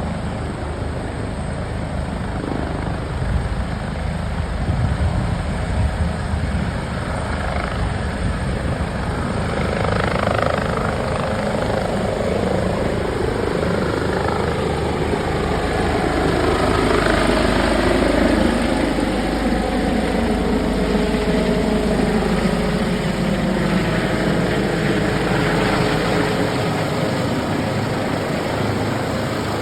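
Airbus H145 rescue helicopter running, a steady, loud rotor-and-turbine sound with tones gliding up and down in pitch; it grows gradually louder to a peak a little past the middle, then eases slightly.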